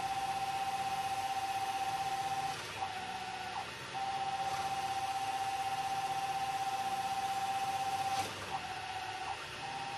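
Metal lathe turning a workpiece, with a steady high whine that breaks off briefly twice, about three and eight seconds in.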